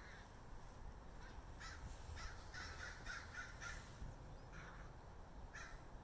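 Crows cawing as they mob a circling bird of prey: a quick run of about seven short caws about two seconds in, then two more spaced a second apart.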